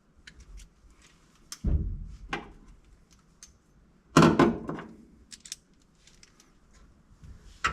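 Metal clunks and clicks from seat belt hardware being fitted and snugged into place: sharp knocks about two seconds in and again just after, the loudest about four seconds in, with light clicks and jangles between.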